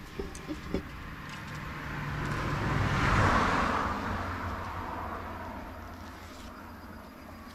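A car passing over the road bridge: its tyre and engine noise swells to a peak about three seconds in, then fades away. A few small clicks come in the first second.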